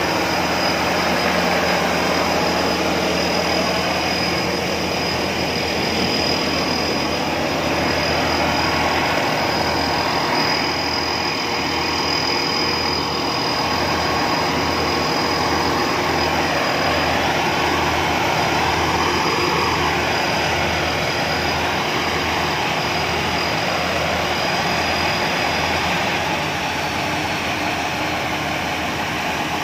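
Rice combine harvester's diesel engine running steadily at working revs while it unloads threshed rice. A thin high whine runs over the engine and fades out near the end.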